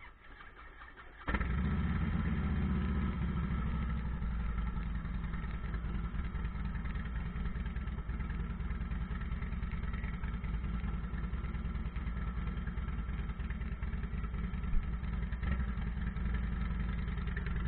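Harley-Davidson V-twin motorcycle engine starting about a second in and settling into a steady, rumbling idle.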